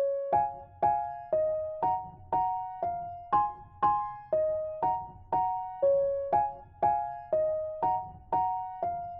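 Background music: a gentle electric-piano melody, a note or two-note chord struck about twice a second, each ringing and fading before the next.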